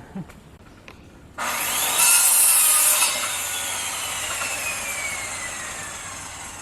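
Power saw started suddenly and cutting wood, its blade whine rising briefly and then falling slowly as the saw winds down.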